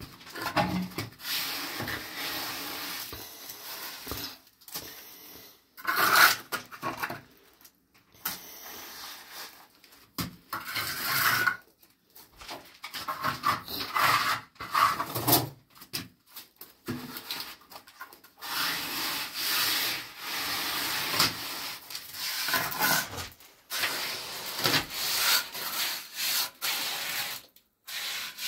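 Irregular rubbing and scraping in uneven strokes, broken by short pauses.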